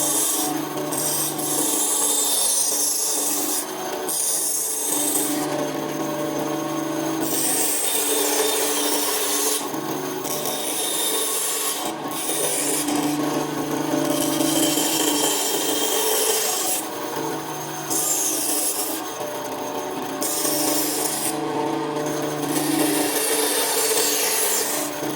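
Scraping against wood in repeated passes of one to three seconds with short breaks between, with a low steady hum coming and going.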